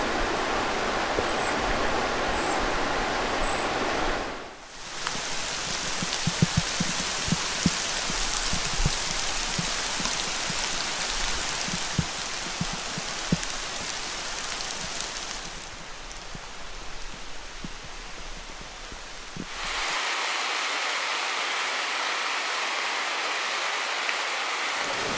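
Steady rain falling, an even hiss with scattered close taps of drops through the middle stretch. The sound changes abruptly a few times, as at cuts between takes.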